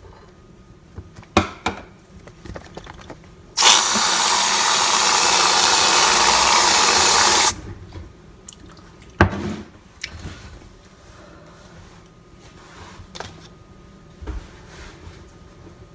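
Aerosol whipped-cream can spraying: a loud, steady hiss lasting about four seconds that cuts off suddenly. A few sharp knocks come before and after it, the loudest about nine seconds in.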